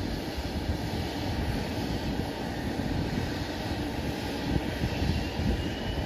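Bombardier Challenger 350 business jet taxiing, its two Honeywell HTF7350 turbofans running at low taxi power: a steady jet rumble.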